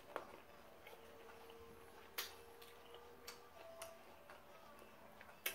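Quiet eating: about five faint, scattered clicks and smacks of a mouth chewing fried fish close to the microphone, the sharpest near the end.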